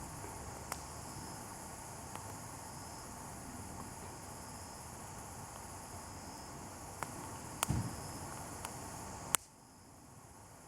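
Insects, crickets by their sound, chirring steadily in high-pitched bands over a low hiss. A few sharp clicks break in, the loudest about nine seconds in, after which the sound drops quieter.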